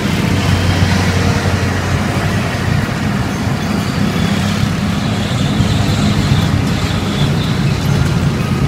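Steady, loud rumble of road traffic, with no distinct events.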